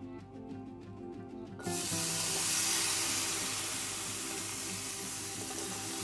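Capers in brine spooned into a hot stainless-steel frying pan, sizzling in the oil: the sizzle starts suddenly and loud about a second and a half in and keeps going. Background music plays underneath.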